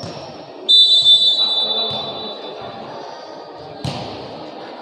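Referee's whistle blown once, a steady high shrill note that starts about a second in and fades over a second and a half, signalling the serve. Near the end a sharp slap of a hand striking the volleyball, with the murmur of the crowd in a large echoing hall.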